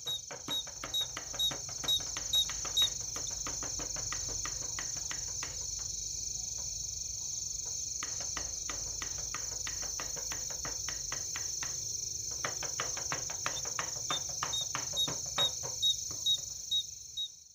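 Two heavy knives chopping beef on a chopping board in rapid repeated strokes, about four to five a second, mincing it by hand. The strokes thin out briefly a couple of times and stop near the end, and a steady high-pitched hum runs underneath.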